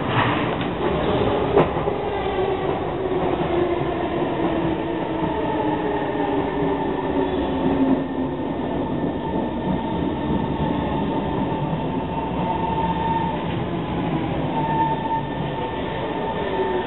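C151 MRT electric train running past on elevated track, with a continuous rumble of wheels on rail. Over the first several seconds a whine slides down in pitch, then a steady high tone holds through the later part.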